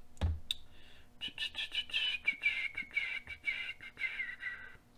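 Small plastic RC car parts being handled, giving a run of light clicks and rattles, with a high wavering squeak-like tone over most of it.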